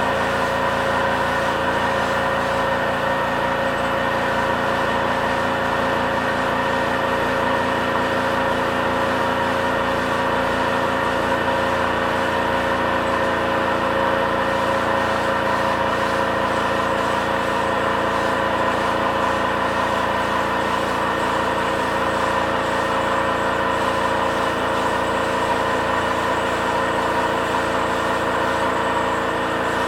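Homemade direct-feed air compressor running continuously: a steady mechanical drone with several fixed tones that holds even and unchanging throughout.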